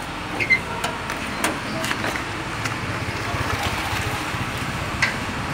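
Steady rushing outdoor noise on a phone microphone, with scattered small clicks and knocks from the phone being handled.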